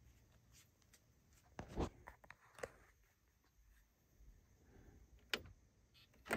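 A quiet room with a few faint knocks and clicks from handling: a soft double knock a little under two seconds in, a click a little later, and one sharp click past five seconds in.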